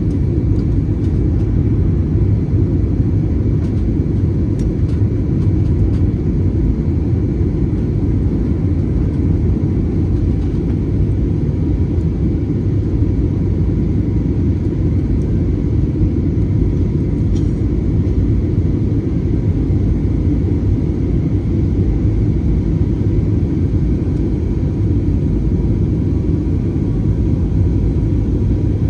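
Airbus A320 jet airliner heard from the cabin: a steady, loud rumble of engines and airflow with faint steady whining tones above it.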